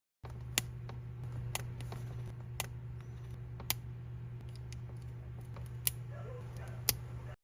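Small hard plastic clicks, six in all, roughly a second apart with a longer pause midway: minifigure parts being handled and snapped together. A steady low hum runs underneath.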